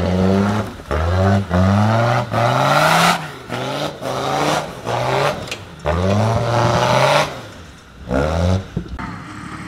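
Land Rover Discovery TD5's five-cylinder turbodiesel revved hard under heavy load in a string of bursts, each one climbing in pitch, with short drops off the throttle between them.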